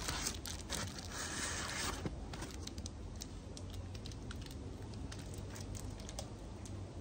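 Rustling and crinkling of packing material and plastic plug trays being handled out of a shipping box, with scattered light clicks. The rustling is densest in the first couple of seconds, then thins to occasional clicks over a steady low hum.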